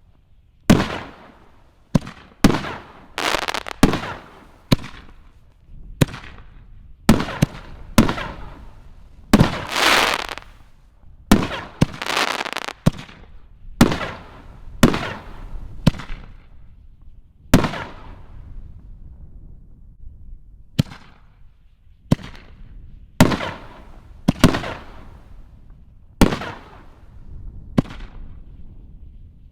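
Neon Skies 5-inch canister firework shells launching and bursting one after another: about two dozen sharp booms, each dying away, some coming in quick pairs, spacing out toward the end.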